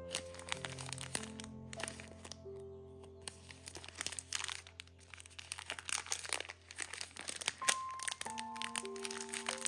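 Background music of held, sustained notes, over many irregular sharp cracks and crunches of something brittle or crinkly being broken or crushed by hand.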